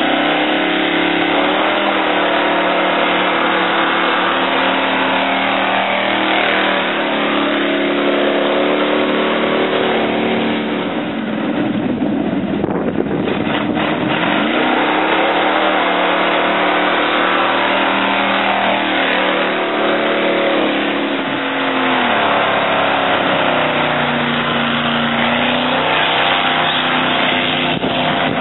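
Lifted pickup truck's engine revving hard through a long burnout, its rear tyres spinning on the pavement. The engine pitch climbs and holds high for several seconds at a time, dipping and surging again three or four times, with a lower, steadier stretch near the end before it climbs once more.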